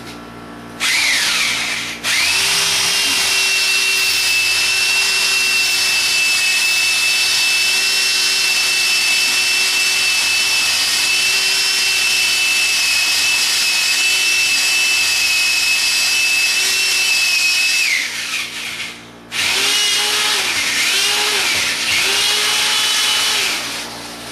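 Old electric drill boring into a concrete-block wall, its motor whining steadily at high pitch for a long run. Near the end it slows and stops, then comes back as a few shorter runs.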